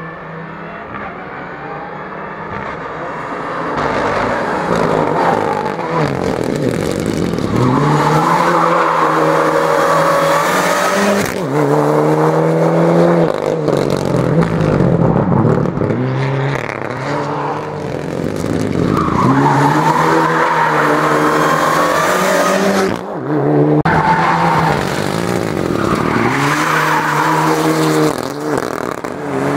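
Race-prepared Mitsubishi Lancer Evolution engine revving hard, its pitch repeatedly climbing and dropping as the car slides through corners, with tyre squeal over it during the slides. The sound breaks off abruptly twice, around 11 and 23 seconds in.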